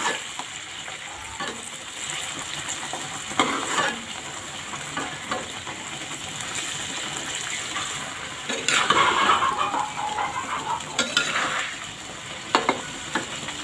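Red balado chili sauce sizzling in a metal wok as a metal spatula stirs and scrapes through it over omelette, with occasional clinks of the spatula on the pan. The stirring and scraping grow heavier for a few seconds starting about nine seconds in.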